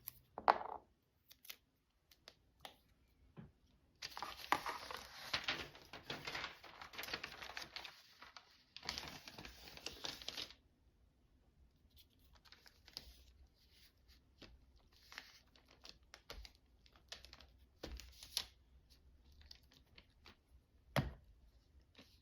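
Paper tearing and crinkling in two dense stretches, a long one about four seconds in and a shorter one about nine seconds in. Quieter paper rustles and a few light taps come between and after.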